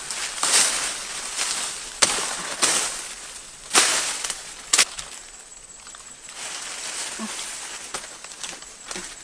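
Tree branches and leaves being pulled and struck by hand: several sharp cracks or knocks in the first half, over leafy rustling that goes on more quietly afterwards.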